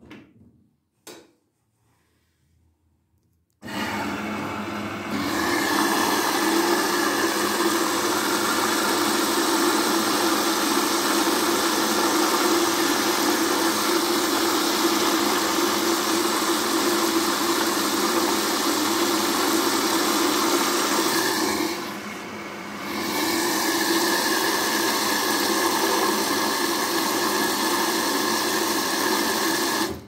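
Indesit front-loading washing machine filling with water: after two faint clicks, the water inlet opens suddenly a few seconds in and water sprays through the detergent drawer with a loud, steady rushing hiss. The hiss dips briefly about three quarters of the way through, then carries on.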